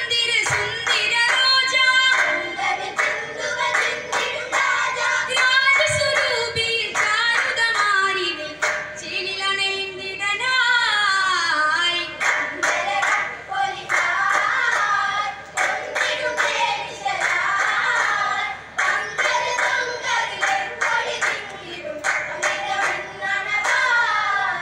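Vattappattu, a Mappila group song from Kerala, sung in chorus by a group of boys, with hand clapping among the singing.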